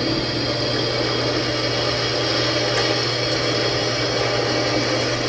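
Drill press running with its bit boring into a steel hex bar: a steady motor hum under a constant cutting hiss.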